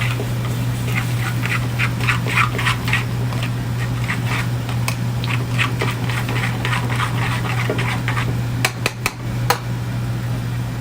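Linguine being tossed and worked in a pan of sauce: irregular short sizzles and wet scraping strokes of the utensil, over a steady low hum. A few sharp clicks of metal on the pan come near the end.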